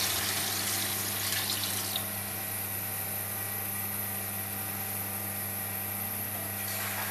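Water pouring from a vessel into a large pot of fried chicken masala, splashing for about two seconds. A steady low hum runs underneath, and a brief rush of noise comes again near the end.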